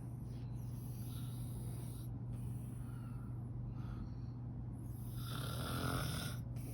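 A sleeping woman snoring: faint breaths early on, then one long, loud snore about five seconds in, over a steady low hum.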